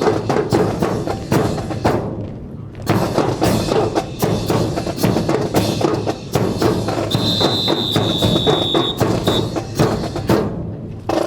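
Marching drum corps playing a cadence of drums with sharp wooden-sounding clicks, pausing briefly about two seconds in. A steady high whistle-like tone sounds for about two seconds near the end.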